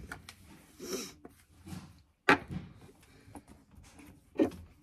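Makeup products being handled and set down: a few clicks and knocks with some rustling, the loudest a sharp click a little past two seconds in and another near the end.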